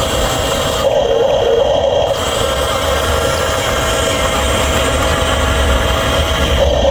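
Small electric motors and gearboxes of radio-controlled construction machines running with a steady whine over a low rumble.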